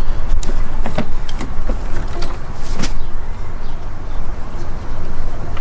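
Scattered metallic clicks and clinks of a wrench working an alternator mounting bolt loose, most of them in the first three seconds, over a heavy, steady low rumble.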